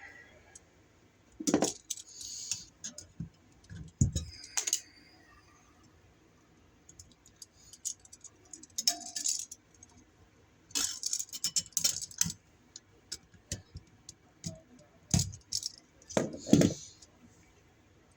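Scattered small metallic clicks, clinks and rattles from handling a wall receptacle, its screws and wiring, coming in short clusters separated by quiet gaps.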